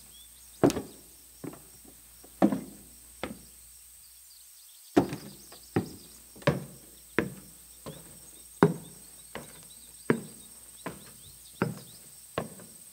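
Heavy elephant footsteps: a series of dull thuds, about one every half second to a second, with a short pause about four seconds in.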